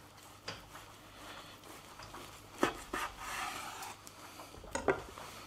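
Cleaver cutting through a glazed, bacon-wrapped smoked meatloaf, with a crackly rasp as the blade goes through and a few sharp knocks of the blade on a wooden cutting board, the loudest near the end.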